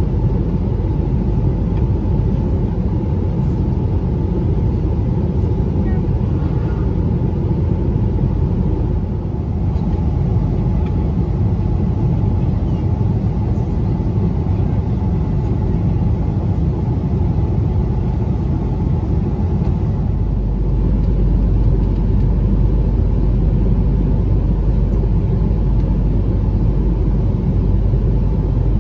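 Steady drone inside the cabin of an Airbus A330 with Rolls-Royce Trent 700 engines: engine and airflow noise. About two-thirds of the way through, the deep low rumble gets heavier.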